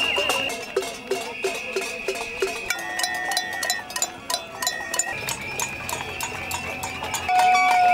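A protest crowd's noise: many people banging metal bowls and pots in a rapid clattering jangle, with high whistling tones held over it. Near the end a plastic horn starts a loud held note that sags slightly in pitch.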